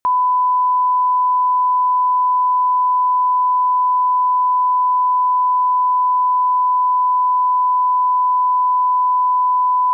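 1 kHz test tone, the steady pure beep that goes with colour bars, held at one unbroken pitch and cutting off abruptly near the end.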